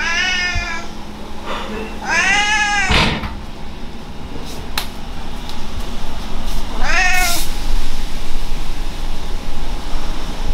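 Ginger cat meowing three times: a call at the start, a longer arched meow about two seconds in, and a short rising one about seven seconds in. A low rumbling noise follows near the end.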